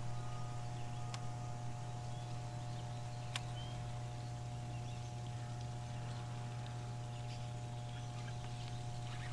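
A steady low electrical hum with fainter steady higher tones above it, with a faint click about a second in and another click with a short chirp about three seconds in.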